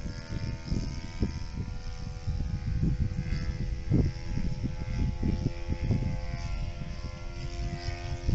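Radio-controlled tow plane's motor and propeller droning steadily overhead as it pulls a glider aloft, with wind gusting on the microphone.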